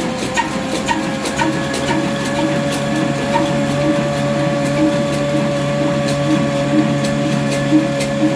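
Old Ruston Hornsby stationary engine running a flour mill (chakki), with a steady beat of about two pulses a second under a steady whine from the grinding mill.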